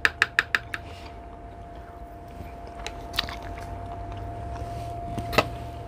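Eating sounds close to the microphone: soft bites and chewing of sweet and sour shrimp. In the first second there is a quick run of light clicks, about eight a second, and one sharp click comes near the end, over a faint steady hum.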